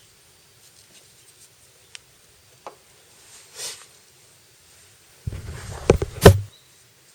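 A few faint clicks and a brief soft brushing sound, then about five seconds in a louder rustle of handling with two sharp knocks close together, the second the loudest.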